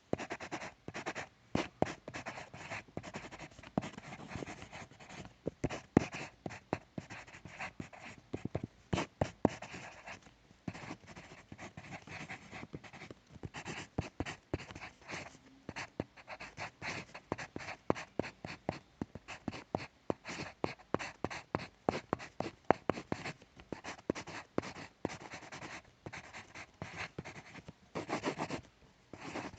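Pencil writing on paper: a fast, uneven run of short scratchy strokes with brief pauses between words.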